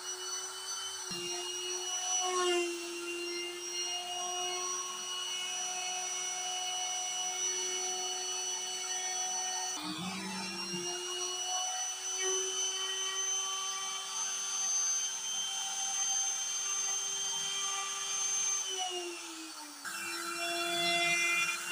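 CNC router spindle whining steadily as it routes grooves into a laminated MDF cabinet panel. Its pitch dips briefly about ten seconds in and sags again near the end before coming back up.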